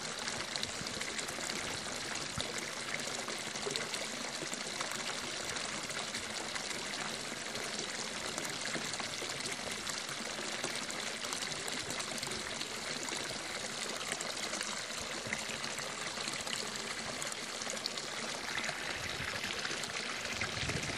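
Running water pouring and trickling steadily, with a fine spatter of droplets, and a slightly deeper rush near the end.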